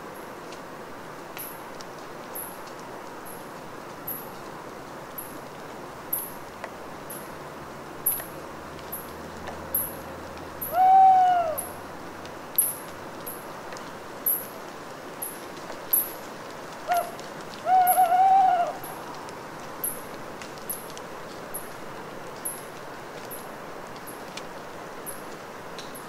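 An owl calls over steady dripping of rainwater from forest branches after rain: one arched, rising-then-falling note about eleven seconds in, then a short note followed by a longer one about seven seconds later. Scattered louder drops fall every second or two.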